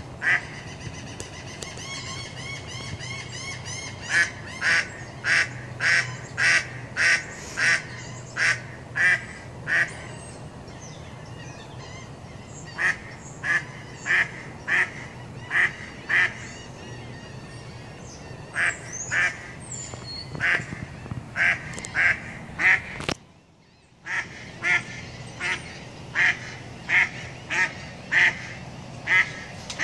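A duck quacking in repeated runs of short, loud quacks, about two a second, with pauses between the runs.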